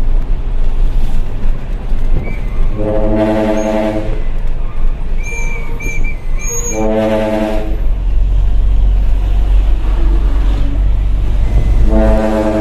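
Dump truck air trumpet horn (the ship-style 'kapal darat' horn) sounding three blasts: one of about a second, a shorter one, then a longer one near the end. The truck's diesel engine rumbles underneath.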